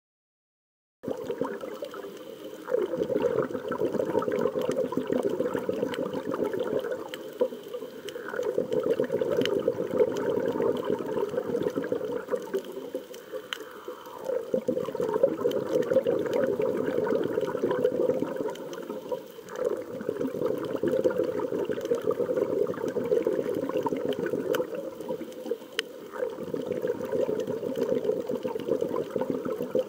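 Water sound, a continuous noisy wash that starts about a second in and swells and eases every five or six seconds, with faint scattered clicks.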